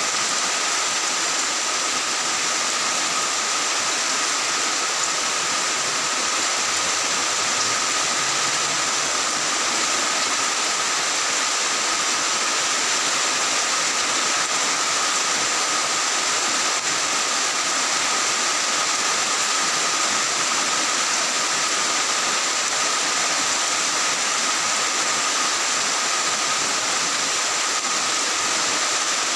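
Heavy rain falling steadily on clay-tile roofs, an even, unbroken rush of water with a steady high-pitched ring running through it.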